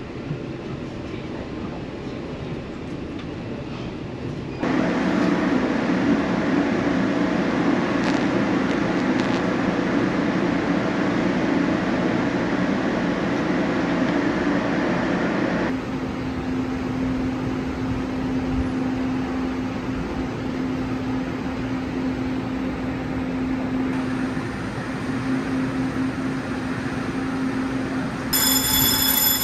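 Passenger train running on the rails, heard from aboard as a steady rumble that shifts abruptly several times. A high-pitched metallic squeal of several piercing tones starts near the end.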